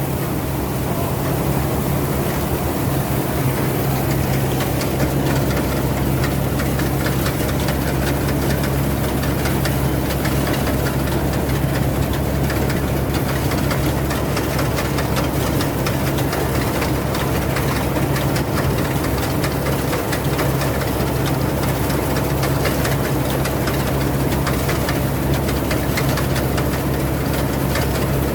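Rice combine harvester's diesel engine running steadily, a constant low drone with a rattly mechanical texture.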